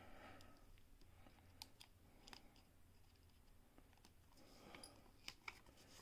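Near silence broken by a few faint, scattered clicks of a small screwdriver working the tight screws of a 2.5-inch hard drive's metal caddy.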